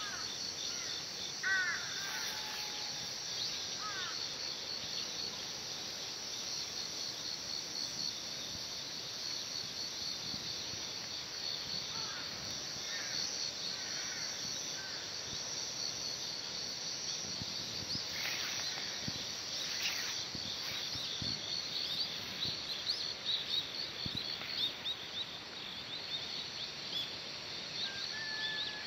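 Crickets chirring steadily in a high, fast pulsing trill, with a few short bird calls early on and again about halfway through, over a soft background hiss.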